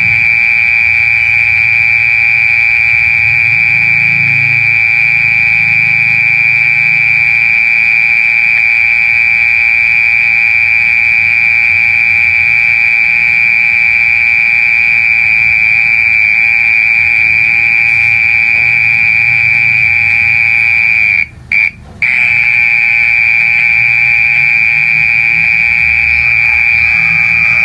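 Mole cricket singing close up: a loud, steady, high-pitched continuous trill. It breaks off twice in quick succession about three-quarters of the way through, then carries on.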